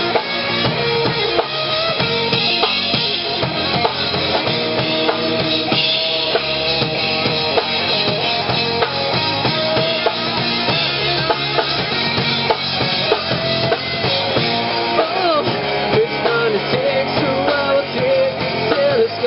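A live rock band playing: two electric guitars, bass guitar and a drum kit, with the drums prominent. A melody line glides up and down in pitch in the second half.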